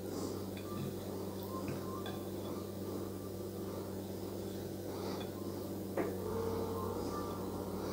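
Quiet kitchen handling sounds as a soft taco is picked up and folded on its plate: a few light knocks and rustles, the sharpest about six seconds in, over a steady low hum.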